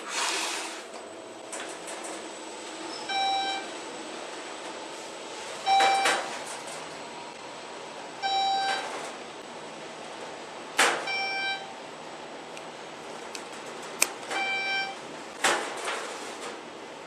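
Elevator's electronic beep sounding six times, a short pitched tone about every three seconds, with a few sharp clicks and knocks in between.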